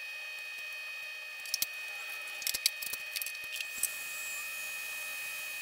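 A few sharp clicks and light knocks over about two seconds, from stain-coated wooden boards being handled and set down on a wooden workbench, over a steady faint hiss.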